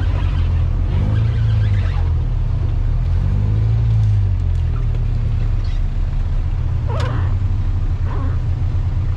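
Engine of a lifted off-road pickup working at low speed as it crawls over a log, with throttle swells about a second in and again about four seconds in.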